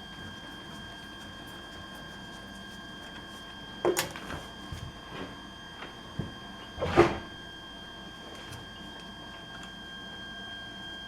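Tools and metal parts being handled on a workbench: two short bursts of knocks and clatter, about four seconds in and again near seven seconds, the second the loudest, over a steady faint high whine.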